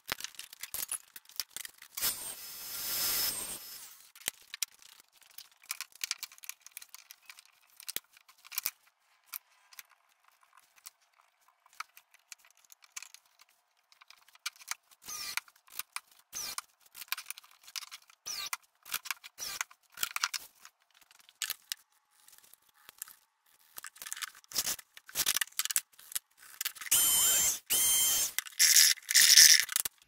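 Hand tools tapping and clicking on a wooden hive frame: a scattered string of short, sharp knocks, louder and denser near the end.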